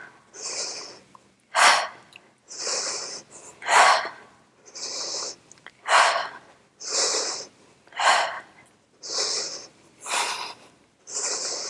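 A woman breathing hard in a steady rhythm from the effort of one-arm dumbbell rows, one breath about every second. A sharper, forceful breath comes about every two seconds, in time with each pull of the weight.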